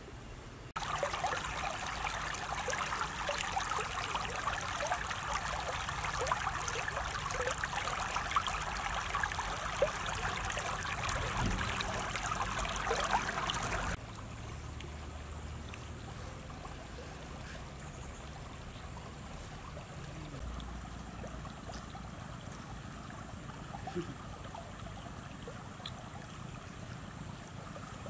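Water running and trickling over stones in a shallow stream, a busy splashing flow with many small ticks. About halfway through it cuts abruptly to a quieter, steadier flow.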